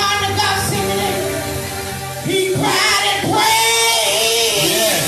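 Gospel church music: voices singing over steady instrumental backing.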